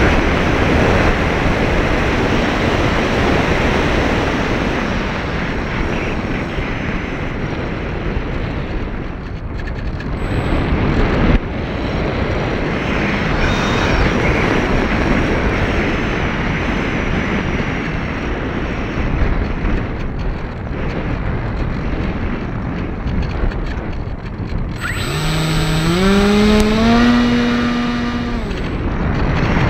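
Wind rushing loudly over a small onboard camera microphone on a flying RC foam plane (Multiplex Easystar). About 25 s in, the plane's brushless outrunner motor comes in with a whine that climbs in pitch in steps for a few seconds as the throttle is opened.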